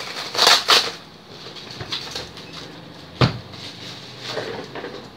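Bubble wrap crinkling and rustling as a bubble-wrapped package is handled and pulled at, loudest in the first second. About three seconds in there is a single sharp snap.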